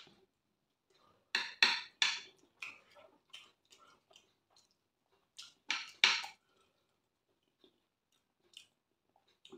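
A person eating rice and stew: chewing and mouth sounds, with a metal spoon clinking and scraping in a glass dish. The sharp sounds come in two loud clusters, about a second and a half in and about six seconds in, with quieter ticks between.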